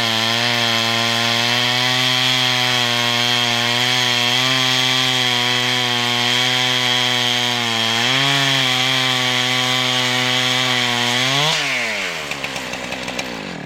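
Two-stroke chainsaw on a chainsaw lumber mill ripping a log lengthwise, its engine running steadily under load, with a brief dip in pitch about eight seconds in. Near the end the revs flare for a moment as the saw comes through the end of the cut, then the engine winds down.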